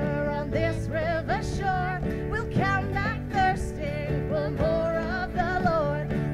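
Live worship song: a woman singing a melody over strummed acoustic guitar and ukulele, with djembe hand drums keeping the beat.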